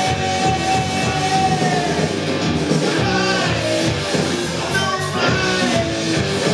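Live rock band playing: electric guitar, bass guitar and drums, loud and continuous, with a long held note near the start.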